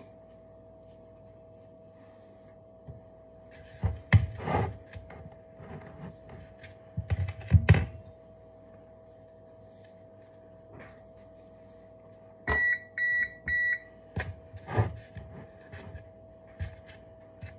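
Knocks and thumps of cookie dough being scooped with a spoon from a plastic tub and handled, the loudest about four and seven seconds in. About twelve seconds in, a kitchen appliance gives four short, high beeps in quick succession, over a faint steady hum.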